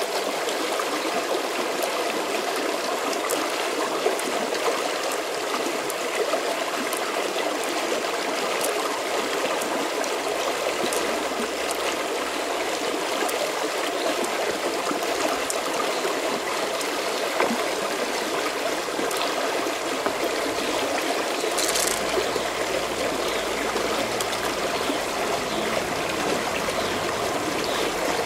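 A river flowing, a steady rushing and trickling of water, with a few small clicks now and then.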